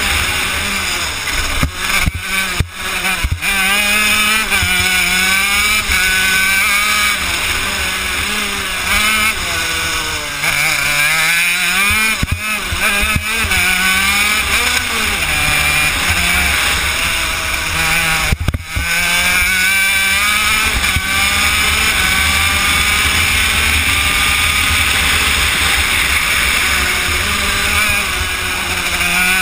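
Honda CR80 two-stroke single-cylinder engine on a shifter kart, heard from onboard, revving up and down as the kart runs through the bends. Its pitch falls lowest about a third of the way in, with a few short breaks in the sound.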